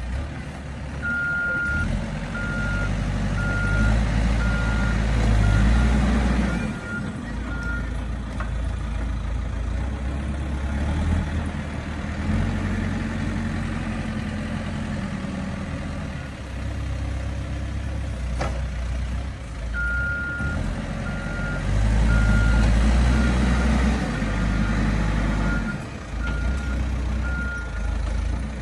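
Caterpillar 426F backhoe loader's diesel engine running and rising and falling under load. Its reverse alarm beeps steadily in two spells, about a second in and again about twenty seconds in, as the machine backs up.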